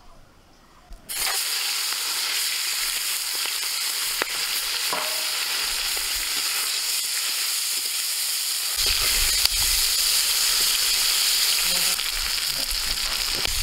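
Giant freshwater prawns frying in hot mustard oil in a wok, sizzling steadily. The sizzling starts suddenly about a second in, with a few faint clicks in the oil.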